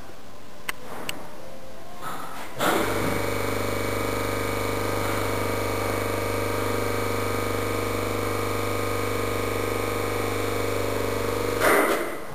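A steady machine hum made of several steady tones. It starts abruptly about two and a half seconds in and cuts off abruptly about a second before the end. Before it there are only a few faint ticks.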